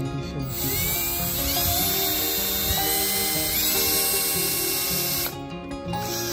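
Milwaukee M18 cordless drill boring into a brick wall's mortar joint, running for about five seconds with its whine climbing in pitch twice, then stopping a second before the end. Background music plays underneath.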